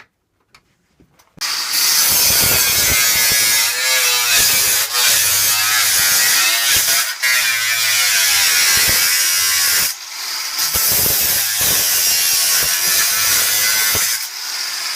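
A saw cutting through the metal casing of a computer's optical disc drive clamped in a vise: a loud, continuous rasping that starts about a second and a half in, falters briefly near ten seconds and stops about a second before the end.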